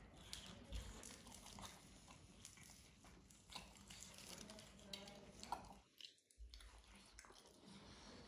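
Chewing and hand-tearing of a flaky lachha paratha: many small crisp crackles and crunches, with a brief gap about six seconds in.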